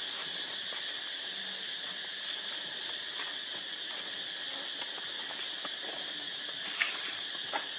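Steady, high-pitched chorus of insects buzzing without a break. Two brief sharp clicks come near the end.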